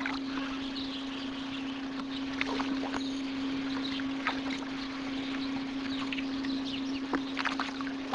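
A steady low hum under even hiss, typical of an old VHS camcorder recording, with a few scattered light knocks and taps.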